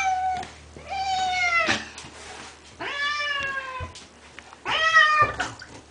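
Domestic cat meowing in protest at being carried to a bath: four long meows, each about a second, one after another.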